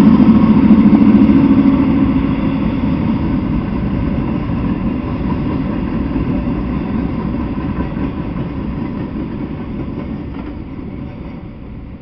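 Freight train cars rolling by on the rails, a low rumble that is loud at first and fades steadily as the end of the train passes.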